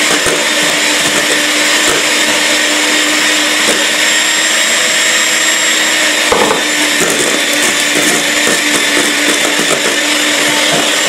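Electric hand mixer running steadily in a stainless steel bowl, its beaters whisking egg whites and sugar into meringue, with a steady motor hum and a few faint clicks.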